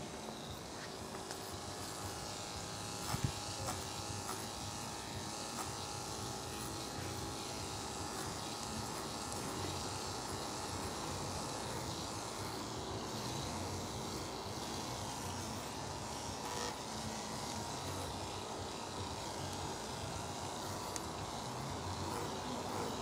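Andis two-speed corded pet clippers fitted with a 3¾FC blade, running steadily with an even electric buzz as they cut through a dog's coat on its back end and tail. A single short tap about three seconds in.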